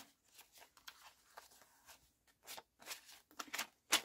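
US paper banknotes being counted and flicked through by hand: a series of short, crisp papery rustles and snaps, the loudest near the end.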